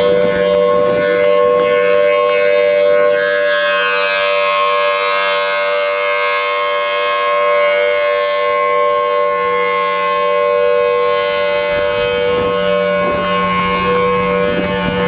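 Outdoor civil-defense warning siren sounding a loud, steady alert, two pitches held together at a constant level.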